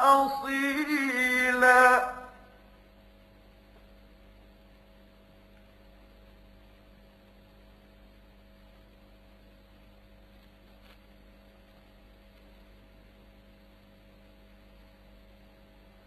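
A man's melodic Quran recitation holds and ends the final word of a verse about two seconds in. It is followed by faint, steady electrical mains hum from the old recording.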